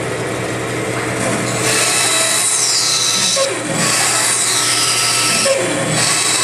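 Band saw running, its blade cutting into wood in a series of short release cuts. From about a second and a half in, the cutting noise comes in repeated passes of roughly two seconds, with brief breaks between them over the steady motor hum.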